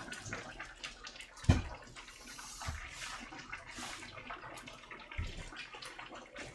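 Water splashing and dripping at a kitchen sink, with a sharp knock about a second and a half in and small clicks of utensils and dishes.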